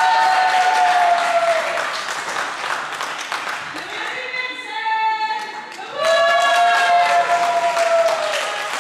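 A voice holds two long, high sung or chanted notes a few seconds apart, each sagging in pitch at its end, with scattered clapping from the crowd around them.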